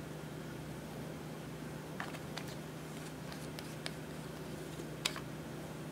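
Clear slime being mixed with eyeshadow, giving a handful of short, sharp clicks and pops between about two and five seconds in, the loudest one near the end, over a steady low hum.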